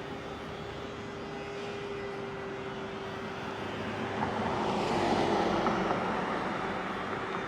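A vehicle passing by: its noise swells about four seconds in and fades near the end, over a steady hum.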